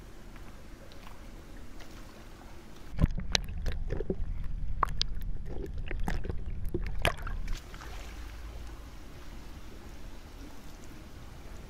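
Muffled underwater sound with bubbles popping, starting suddenly about three seconds in and cutting off abruptly about four and a half seconds later. Before and after it, the faint steady hiss of a quiet indoor pool hall.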